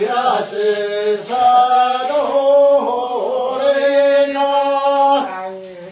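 Singing of a slow, chant-like melody in long held notes that step from pitch to pitch, fading near the end.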